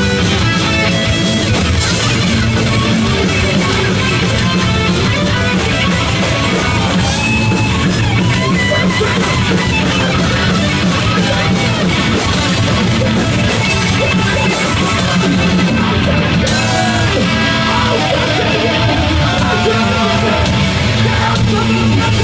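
Hardcore punk band playing live and loud: electric guitars, bass and drums, heard from the crowd close to the stage.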